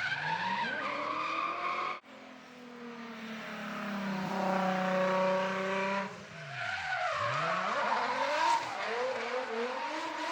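Drift cars sliding past: engines revving hard with pitch sweeping up and down, and tyres squealing and skidding. The sound breaks off abruptly about two seconds in, then another car's engine builds up and goes past.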